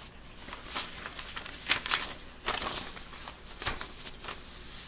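Paper rustling and crinkling in a few short bursts as an envelope and the letter inside are handled.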